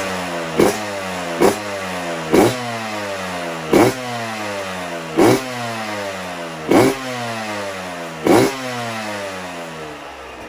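Yamaha YZ125X 125 cc single-cylinder two-stroke engine, fitted with an FMF Factory Fatty expansion chamber and silencer, being blipped on the throttle seven times. Each blip is a sharp jump in revs that then falls away, and the blips come further apart as it goes on.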